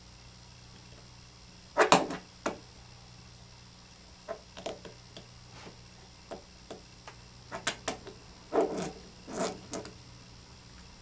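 Clicks and light knocks of small plastic and metal parts of an RC truck's rear axle carrier being handled and fitted together by hand. There is a louder clatter about two seconds in and another group of knocks near the end.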